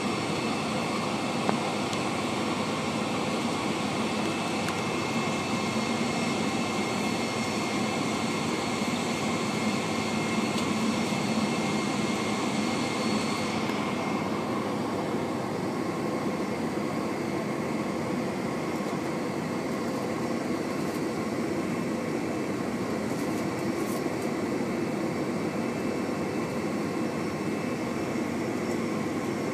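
Boeing 747-400's Rolls-Royce RB211-524H turbofans at low taxi power, heard inside the cabin as a steady rumble with a thin high whine on top. The whine drops out suddenly about halfway through, and the rumble carries on unchanged.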